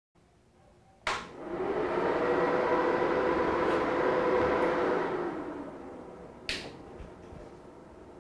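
dxb BL8000 power amplifier being switched on: a sharp click from the power switch about a second in, then a rush of cooling-fan noise that swells, holds for a few seconds and dies away. A second, smaller click comes near the end of that rush, and a faint steady hum stays under it.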